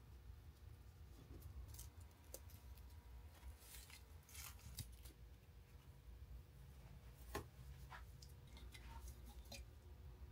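Near silence with faint scattered clicks and rustles of hands handling cut acrylic pieces and their paper masking on an acrylic sign, over a low hum. The sharpest click comes about seven seconds in.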